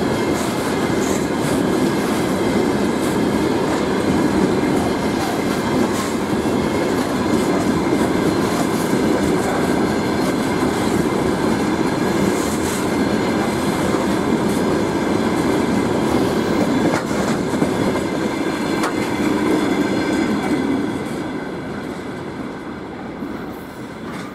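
Freight train of gondola wagons rolling past, steel wheels running over the rails in a steady rumble. The sound fades over the last few seconds as the end of the train draws away.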